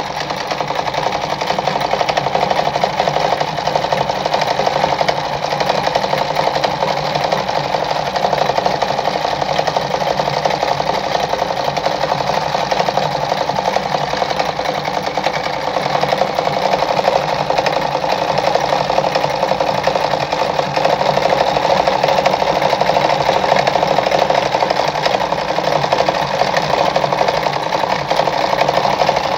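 Mercedes 340FB sewing machine running steadily at speed while stitching a decorative pattern stitch.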